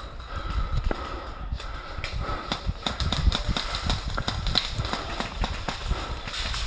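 Irregular footsteps of a player moving across the field, with gear jostling and knocks and thuds on the body-worn camera.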